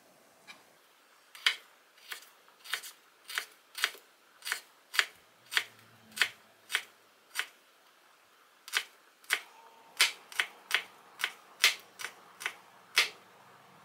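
Chef's knife slicing garlic cloves thinly on a wooden cutting board: irregular sharp knocks of the blade against the board, about one or two a second, with a pause of about a second past the middle and quicker strokes near the end.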